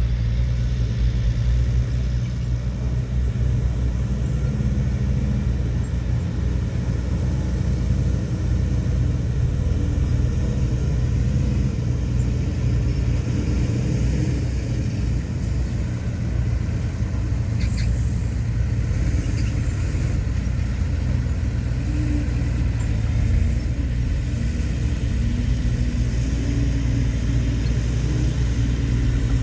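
Heavy diesel earthmoving machinery running steadily under load with a deep, continuous rumble, and a couple of faint clicks just past the middle.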